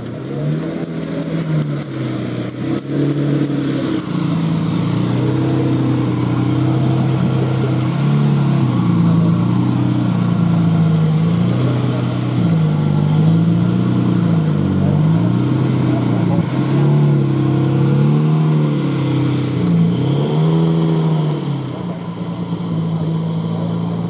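Lamborghini Murciélago's 6.2-litre V12 running at idle through its exhaust, with the throttle blipped repeatedly in the second half so the engine note rises and falls in short revs.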